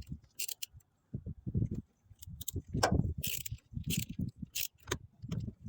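Metal hand tools clinking and scraping against a screw and parts, with irregular knocks and rattles as the fastener is worked loose.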